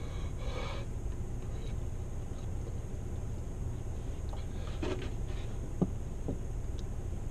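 A man exhales hard through an open mouth, his mouth burning from Carolina Reaper pepper. Then a plastic gallon milk jug is handled with a few light clicks and one sharp click before he drinks from it, over a steady low rumble.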